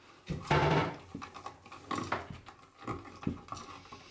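Orange plastic wire nuts being twisted onto loose electrical wire ends, with scattered clicks and rustles of wire handling. About half a second in there is a short, loud vocal sound.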